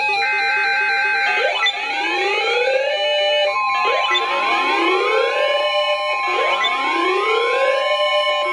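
Emergency alert attention signal. A whooping alarm sweeps upward in pitch over and over, one sweep about every two and a half seconds, and a steady alert tone joins about three and a half seconds in. Before the first sweep, in the first second or so, a repeating electronic music pattern is heard.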